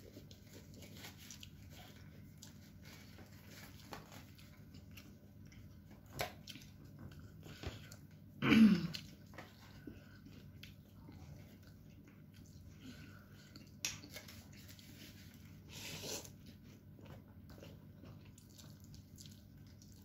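A person eating instant noodles and meatballs in soup: quiet chewing and slurping, with a few short clicks and a louder burst a little past eight seconds in.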